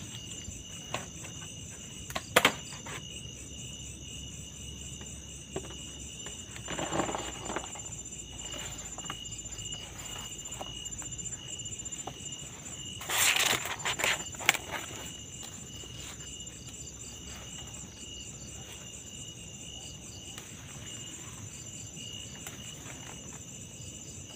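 Night chorus of crickets and other insects: a steady high trilling with a faster pulsing note above it. Brief rustles and a few sharp clicks break in, the loudest a click about two seconds in and a rustling burst around thirteen seconds in.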